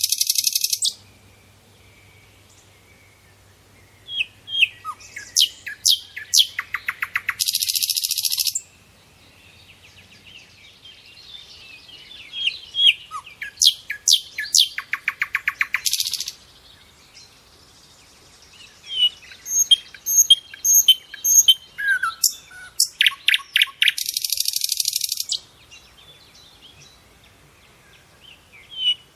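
Songbird singing in repeated bouts of quick chirps and whistled notes, several bouts ending in a rapid buzzy trill, with quiet gaps of a few seconds between them.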